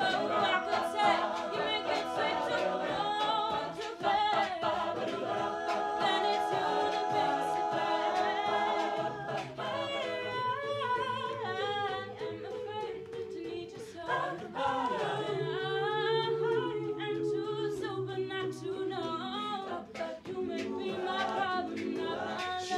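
A cappella group singing in close harmony: a female soloist's melody over several backing voices, with no instruments.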